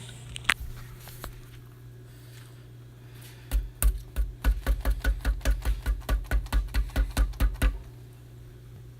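A dud aerial firework shell being shaken, its loose contents rattling inside in a fast, even run of clacks with low thumps, about five a second, starting a few seconds in and lasting about four seconds.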